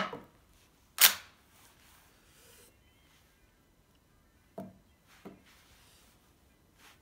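Mannlicher M1895/30 straight-pull bolt being worked by hand to clear a hang-fire cartridge: two sharp metallic clacks, one right at the start and a louder one about a second in, then a few faint clicks.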